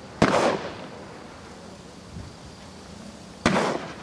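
Two shotgun shots about three seconds apart, each a sharp bang with a short echoing tail.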